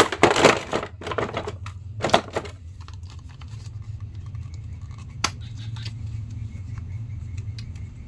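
Thin plastic bag and clear plastic tray crinkling and rustling as a plastic action figure is unwrapped by hand, densest in the first two seconds, then scattered plastic clicks over a low steady hum.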